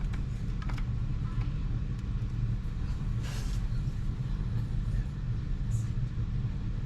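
Steady low hum throughout, with a short hiss of Zip Kicker glue accelerator being sprayed about three seconds in.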